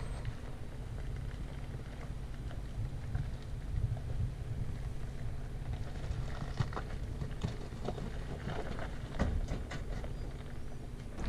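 Ford Bronco's 2.7-litre V6 running at low speed as the truck crawls up a loose rocky slope, with wind buffeting the microphone. From about six seconds in, gravel and rocks crackle and pop under the tyres.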